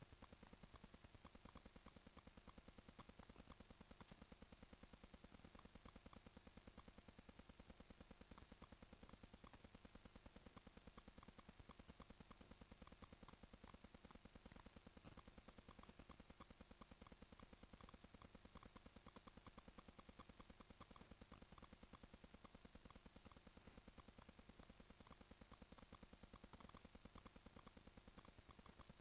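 Near silence with a faint, fast, even ticking throughout, from a stopwatch countdown sound effect.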